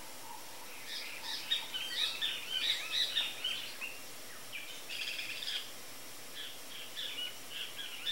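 Small birds chirping: many short, high notes in quick clusters, coming in three bouts with brief pauses between them, over a steady background hiss.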